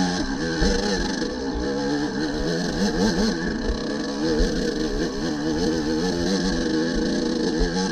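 Off-road motorcycle engines revving up and down, several pitches rising and falling over one another without a break.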